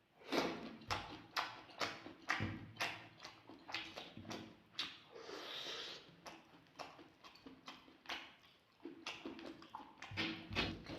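Close-miked eating sounds: wet chewing and lip smacks, about two a second, with a short breathy hiss about halfway through.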